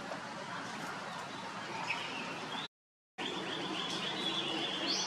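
Outdoor background with birds chirping. The sound cuts out completely for about half a second a little past halfway, and after it a steady, rapidly pulsing high trill runs on.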